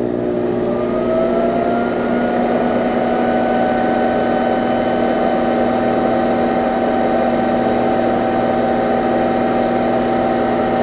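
Metal lathe running under power, turning a scratch-built two-cylinder model steam engine in its chuck to run in its new piston washers. A whine rises in pitch over the first couple of seconds as the lathe comes up to speed, then holds steady.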